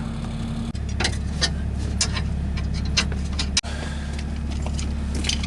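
A vehicle engine idling with a steady low hum, with a series of sharp ticks about once or twice a second over it.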